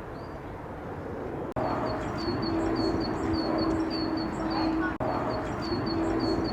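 Birds chirping in a rapid series of short, high, repeated chirps over outdoor background noise, with a steady low hum underneath. The sound drops out briefly twice.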